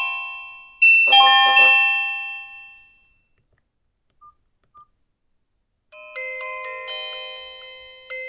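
Nokia 5310 feature phone playing its built-in ringtones through its loudspeaker: a bell-like ringtone phrase sounds again about a second in and dies away, two short beeps come in the gap, and a different ringtone melody of quick stepped notes starts about six seconds in.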